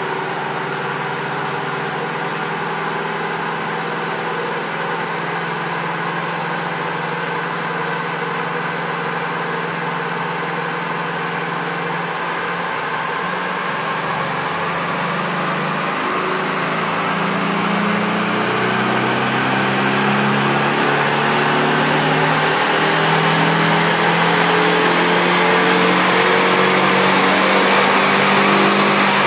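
Porsche 718 Boxster S turbocharged flat-four with an Armytrix valvetronic exhaust, running on a chassis dyno. The note holds steady at first, then from about twelve seconds in it climbs gradually in pitch and grows louder as the engine is taken up through the revs under load.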